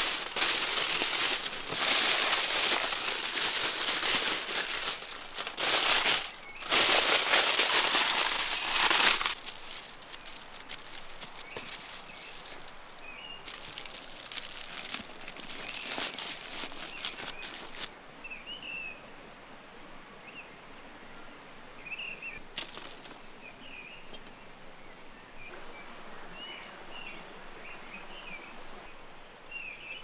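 Aluminium foil crinkling loudly as it is wrapped around a whole watermelon, for about nine seconds with two short breaks, then quieter rustling. In the second half birds chirp in short calls.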